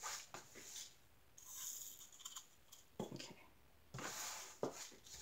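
Faint scattered ticks and brushing scrapes of spilled plastic diamond-painting drills being swept and gathered by hand on a tabletop.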